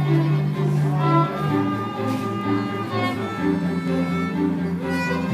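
Violin playing a melody over an accompaniment of held low bass notes, the bass shifting down about a second and a half in and again about three and a half seconds in.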